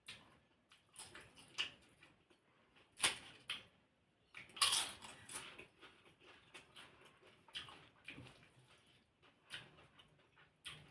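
A person eating close to the microphone: irregular chewing and crunching with small clicks, the loudest crunches about three seconds in and again about five seconds in.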